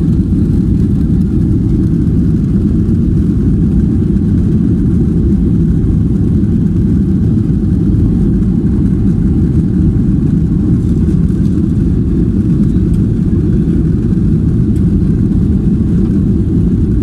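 Jet airliner cabin noise heard inside the cabin: a loud, steady low roar of the engines and the rumble of the wheels as the plane rolls along the runway.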